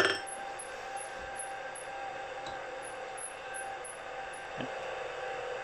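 Milling machine spindle running without load, a steady hum with a faint whine, as the gear cutter sits clear of the work between tooth cuts. A couple of faint clicks are heard.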